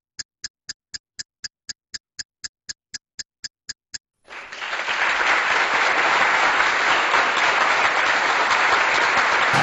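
Ticking of a film-countdown sound effect, short evenly spaced clicks about four a second, stopping about four seconds in. Applause then swells up and continues.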